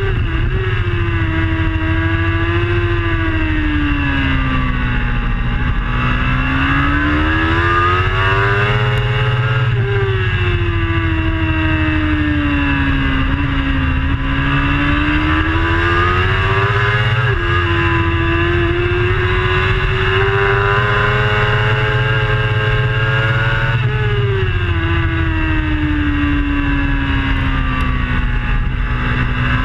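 Onboard sound of a racing superbike's engine at speed, its pitch rising and falling in long sweeps as it accelerates down the straights and slows for corners, with abrupt jumps in pitch at gear changes about 17 and 24 seconds in. A steady low rush runs underneath.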